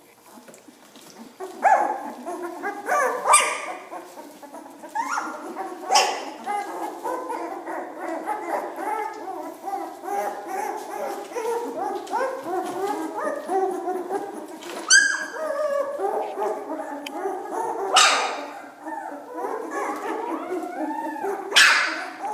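A litter of two-week-old Dalmatian puppies whining and squealing over one another, starting about a second and a half in. About five louder, sharper cries stand out above the chorus.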